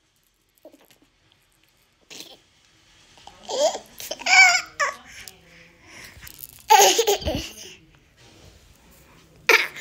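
A young child laughing and babbling in several short bursts.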